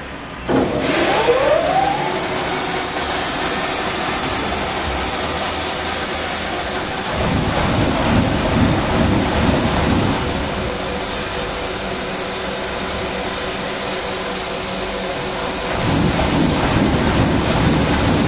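Automatic band-saw toilet paper roll cutting machine starting up: its motor spins up with a rising whine about half a second in, then runs steadily. From about seven seconds in, and again near the end, a rhythmic pulsing as the saw cuts the paper log into rolls.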